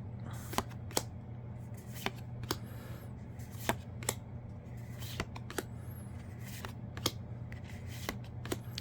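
Yu-Gi-Oh! trading cards from a freshly opened booster pack being flipped through one at a time, each card giving a short sharp snap, about a dozen in all and often in pairs, over a low steady hum.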